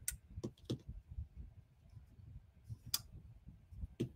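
A few sharp clicks and taps from folding pocket knives being handled and set down: a quick cluster in the first second, a louder single click about three seconds in, and another near the end.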